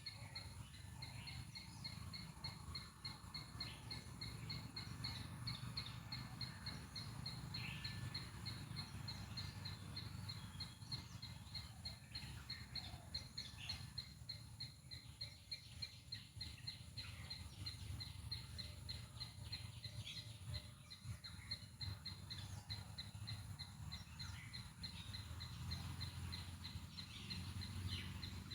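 A squirrel's chirping call, a fast, even string of short high chirps kept up almost without a break, with scattered other chirps around it and a low background rumble.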